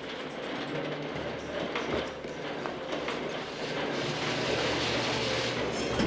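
Motorized garage door running on its chain-drive opener, a steady mechanical rattle and clatter. It stops with a sharp clunk at the end.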